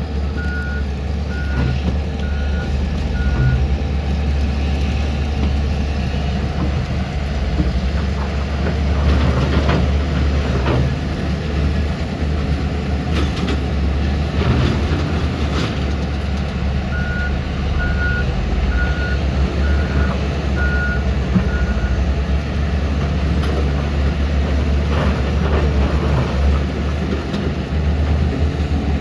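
Heavy diesel machinery running steadily with a deep hum, while a reversing alarm beeps about twice a second for a few seconds at the start and again for about five seconds past the middle. Scattered clanks and scrapes come in between.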